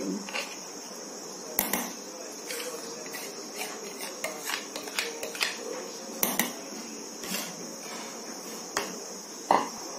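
A kitchen utensil scraping and tapping against a mixing bowl as the last cake batter is scraped into an aluminium cake tin: a dozen or so scattered clicks and taps, the loudest near the end, over a steady high-pitched drone.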